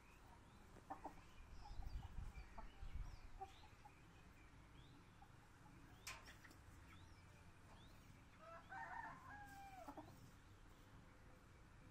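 A rooster crows once, a short crow of about a second and a half, three-quarters of the way through. A wing flap comes a couple of seconds before it, with faint clucking and small-bird chirps around. A low rumble about two seconds in is the loudest noise early on.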